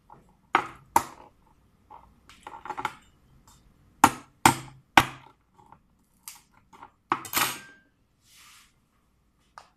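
Cooked blue crab shells cracking and snapping as they are broken apart by hand. Two sharp cracks come near the start and three about half a second apart midway. A longer crunching crackle follows.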